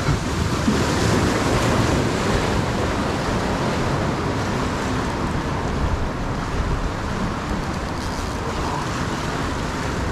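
Small waves washing and breaking against the boulders of a rock jetty, a steady rush of surf.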